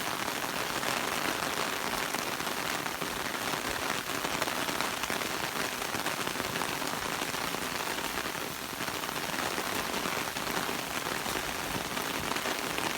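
Steady heavy rain falling, a loud, even hiss with no let-up.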